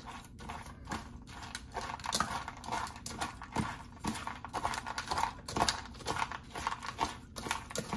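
Metal spoon stirring dry kibble and chunks of liver in a stainless steel bowl: a stream of irregular clinks and scrapes of metal on metal and rattling kibble.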